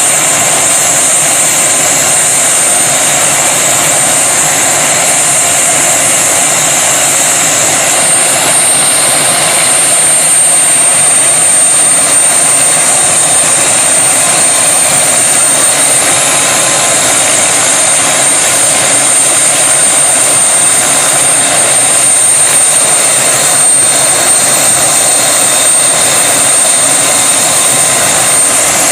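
Helicopter in flight, heard from inside the cabin: a loud, steady drone of engine and rotor with a constant high whine over it.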